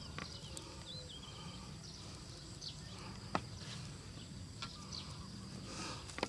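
Outdoor natural ambience: a steady high insect drone with scattered light clicks and taps, and a brief bird-like chirp about a second in.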